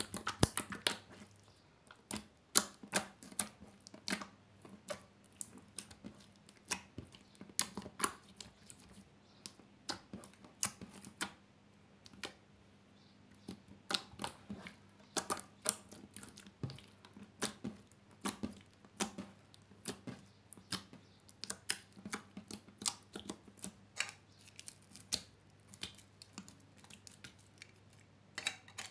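Glossy slime squeezed and kneaded by hand, giving irregular sticky clicks and pops a few times a second, with short pauses between runs.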